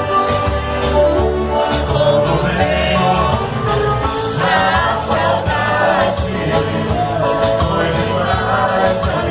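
Live band playing a song with a singer, over steady bass and percussion.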